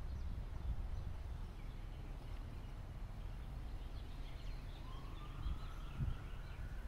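Faint outdoor ambience: a steady low rumble with scattered faint bird chirps. From about five seconds in, a faint tone slowly rises and then falls.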